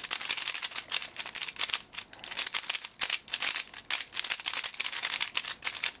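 A 50mm ZhanChi 3x3 speedcube turned fast with one hand: a quick run of hard plastic clicks and clacks as the layers snap round, stopping at the end.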